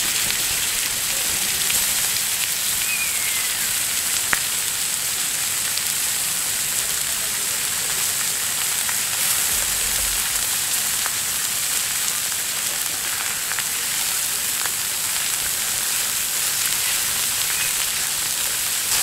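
Thick-cut pork belly sizzling on an iron griddle plate over a wood campfire, with a few sharp crackles scattered through the steady hiss.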